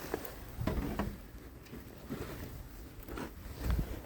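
A few soft crunches and knocks at irregular intervals, from snow being handled at a snow-blocked doorway.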